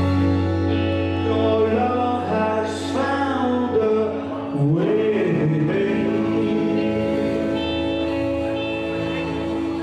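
Gospel-style worship music: a voice singing over sustained instrumental chords, with the singing falling away about halfway through while the chords are held.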